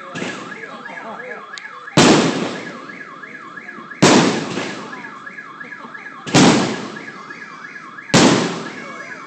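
Fireworks going off: four loud bangs roughly two seconds apart, each dying away. Behind them a car alarm sounds throughout with a fast, repeating rising whoop.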